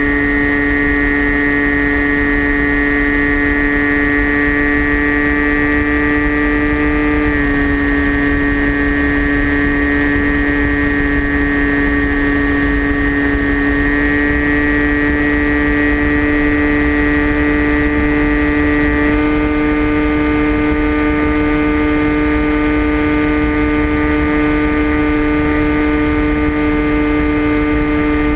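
TBS Caipirinha flying wing's brushless electric motor and pusher propeller whining steadily in flight. Its pitch dips slightly about a quarter of the way in, rises again about halfway, and rises a touch more about two-thirds through as the throttle shifts. Low wind rush on the onboard camera's microphone runs underneath.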